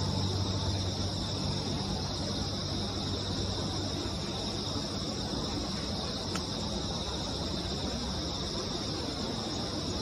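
Late-summer insect chorus: a steady, shrill, unbroken chirring high in pitch, over a low steady rumble.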